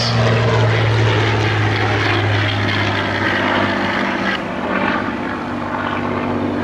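Supermarine Spitfire PR Mk.XI's Rolls-Royce Merlin V12 engine running under power as the aircraft climbs and rolls overhead. The engine note drops a little in pitch at the start and fades slightly about four seconds in.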